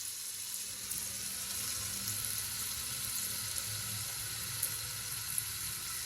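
Hot mustard oil sizzling in a pan with cloves and garlic frying in it, the garlic already fried dark: a steady hiss with a few faint crackles.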